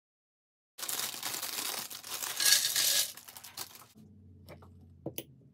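Lego bricks and parts being handled: about three seconds of dense, loud handling noise full of small clicks, loudest near the middle, then after a drop a low hum with a few separate light clicks of plastic bricks.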